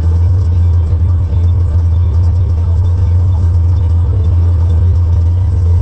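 Tractor engine running under load, a steady deep hum with faint steady tones above it.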